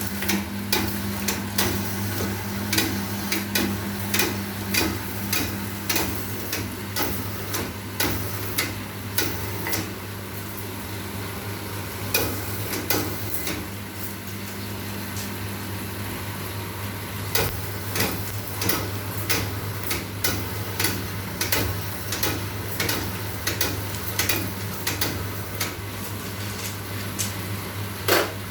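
Bamboo satay-skewer thinning and rounding machine running: a steady electric-motor hum with frequent sharp clicks and knocks as the sticks pass through.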